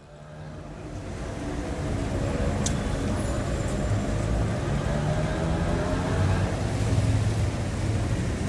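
High-street traffic ambience: road vehicles running and passing, with steady road noise and a low engine hum, fading in from silence over the first two seconds. A single sharp, high click comes about three seconds in.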